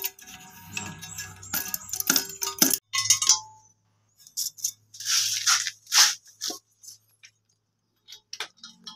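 Clicks, knocks and light rattles of plastic toilet-tank fittings being handled and fitted inside a ceramic cistern, with a few short hissing bursts about five to six seconds in.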